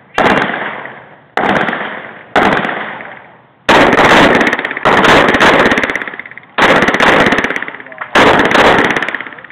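Semi-automatic pistol firing a string of shots, heard loud from the shooter's own position, each shot ringing out and decaying. The first few shots come about a second apart, then quicker runs of shots follow from about four seconds in.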